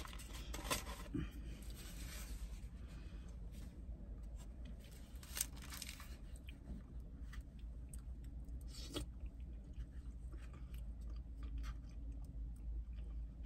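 Eating sounds: chewing, with a plastic spoon clicking and scraping in a foam cup of chili as small scattered clicks, over a low steady hum.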